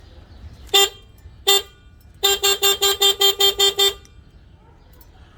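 Sowuno 126 dB rechargeable electric bicycle horn, fitted to a mini bike as a security alarm, sounding two short beeps and then a quick run of about ten beeps, roughly six a second.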